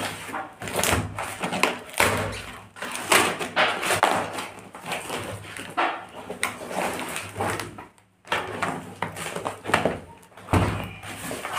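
Corrugated cardboard and packing tape being cut with scissors and torn off a parcel by hand: irregular ripping and rustling strokes, with a short pause about eight seconds in.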